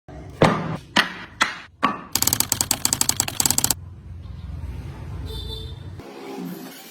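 Four sharp knocks, about half a second apart, followed by a quick run of clicks, about ten a second for under two seconds, then a low hum.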